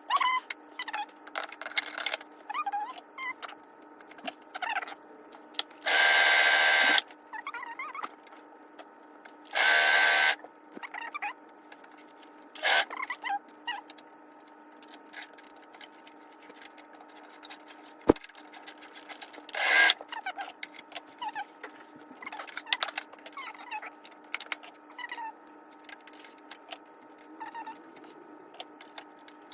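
Brother 1034DX overlock machine stitching in short spurts of about a second, twice in the first half and more briefly twice after. Between the spurts come small clicks and knocks of handling.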